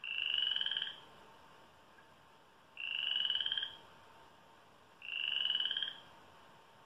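Frog croaking: three trilled calls of about a second each, rising slightly in pitch, a second and a half or so apart, played through a laptop speaker.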